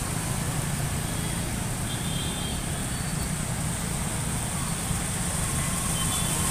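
Steady street traffic noise of cars and scooters driving through standing floodwater, with a continuous low rumble.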